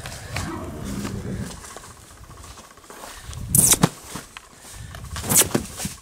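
Young stallion moving loose over grass, with a pitched sound near the start and two short, loud noisy bursts about three and a half and five and a half seconds in.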